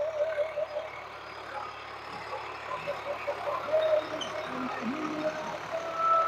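Swaraj 834 XM three-cylinder diesel tractor engine running steadily at about 1500 RPM under load, pulling a disc harrow through the soil. Wavering tones can be heard over it at times.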